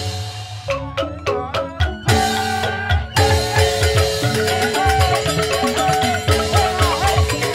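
Balinese joged bumbung gamelan playing: bamboo xylophones (grantang) struck with mallets in fast patterns over drum strokes. For the first few seconds the music goes in short accented stops and starts, then about three seconds in the full ensemble plays on steadily.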